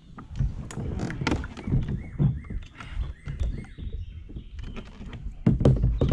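Knocks and thumps of a person and gear shifting in a fishing kayak as he sits down, with the heaviest thumps near the end. Birds chirp in the background.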